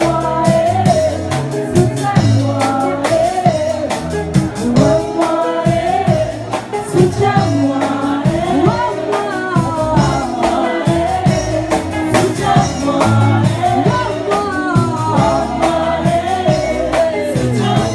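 Live gospel worship music: a woman singing lead into a microphone with a backing choir, over a drum kit.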